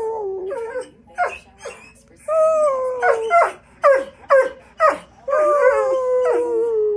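Borzoi singing: long drawn-out howls that slide slowly down in pitch, broken by short yips that drop sharply in pitch.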